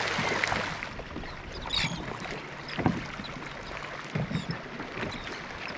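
Water lapping against the hull of a small aluminium boat drifting with the engine off, with a few light knocks against the hull.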